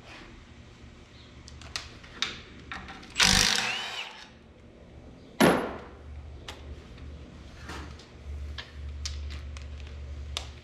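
Tool-and-metal clatter from stripping down a 12-valve Cummins diesel engine. Scattered clicks and knocks, a loud scraping burst about three seconds in, and a sharp metal clank with a brief ringing note about five and a half seconds in, over a steady low hum.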